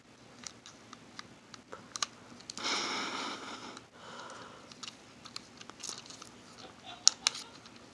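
Plastic fidget cube being worked by hand: scattered small clicks and taps, with a short rustle about three seconds in.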